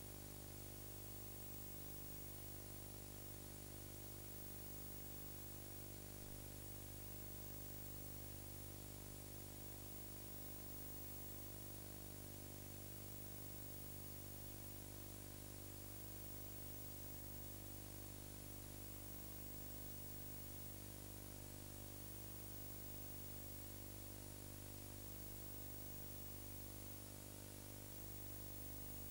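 Steady electrical hum with a ladder of overtones under a constant hiss, the background noise of an old tape transfer; no other sound stands out.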